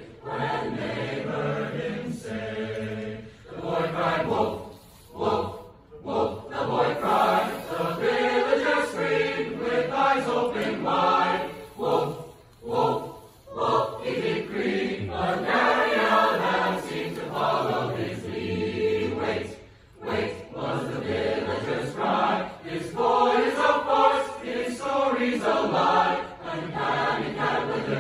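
A choir singing, its phrases broken by a few brief pauses.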